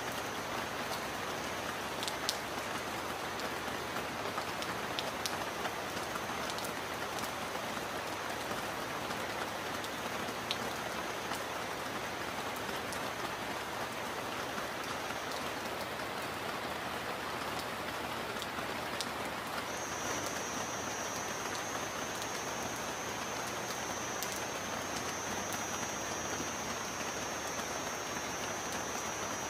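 Steady heavy rain falling: an even hiss with scattered sharp drop clicks. A thin, high, steady tone runs beneath it, drops out around the middle and comes back louder about twenty seconds in.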